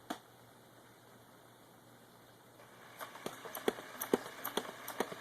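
Battery-powered toy dart blaster's motor starting to run about two and a half seconds in, followed by a fast run of sharp clacks as it fires darts, roughly three a second.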